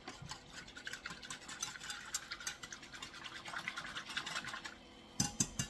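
A small wire whisk stirring sugar into hot tea in a metal saucepan to dissolve it: rapid scratchy swishing of the wires against the pan bottom, then a few sharper knocks just before the end.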